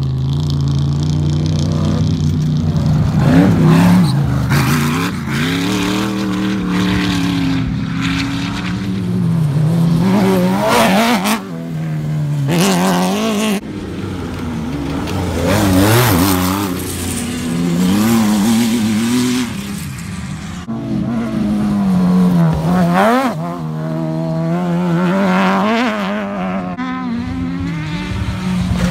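Off-road race buggy engines revving hard, the pitch climbing and dropping again and again as they accelerate and shift gears.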